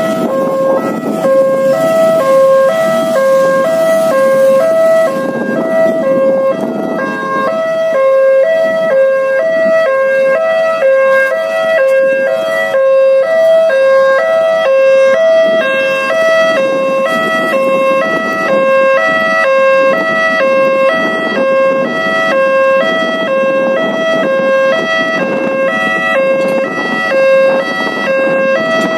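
Railway level crossing alarm sounding from its loudspeaker at the lowered barriers: a fast electronic two-tone chime alternating steadily between two pitches without a break. Road traffic engines run underneath.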